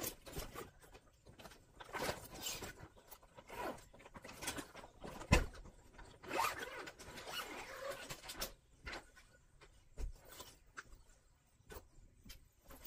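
Clear plastic zippered bedding bag being handled and unzipped: crinkling plastic and rustling, a thump about five seconds in, then a scratchy stretch of the zipper being pulled open, and another thump later.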